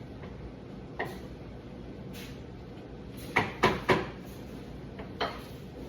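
Kitchen handling noises: a single knock about a second in, then three sharp knocks in quick succession a little past the middle, and one more near the end, over a steady background hum.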